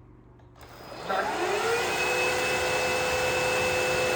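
Aspiron CA-022 cordless wet-dry vacuum's motor starting about a second in, a rising whine that levels off into a steady run as its self-cleaning cycle begins.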